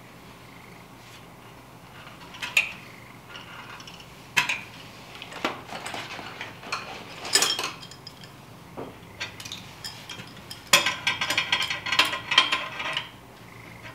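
Scattered metallic clicks and clinks of hand tools on a metal fitting as the line into an oil burner's drawer assembly is worked loose. There is a rapid run of clicking about eleven seconds in.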